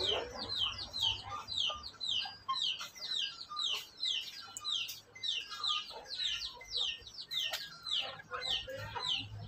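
Young chickens peeping: a rapid, steady series of short high peeps, each falling in pitch, about three a second.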